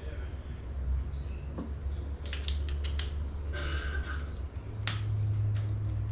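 Sharp metallic clicks and short scrapes of a flathead screwdriver working a motorcycle fork's top cap and its retaining clip, a cluster of clicks in the middle and another near the end. A steady low hum runs underneath, shifting up in pitch about three quarters of the way through.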